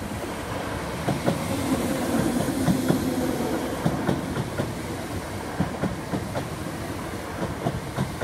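Class 317 electric multiple unit train (units 317664 and 317662) passing the level crossing: a steady rumble that builds over the first couple of seconds and then holds, with a run of wheel clicks over the rail joints.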